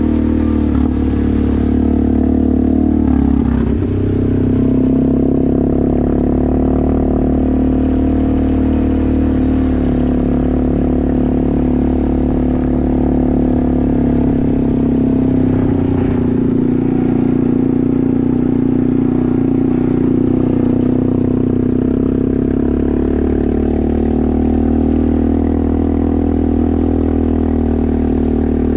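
Off-road vehicle engine heard from on board while riding a dirt trail, running at a steady drone. About three to four seconds in it dips in pitch and then picks back up.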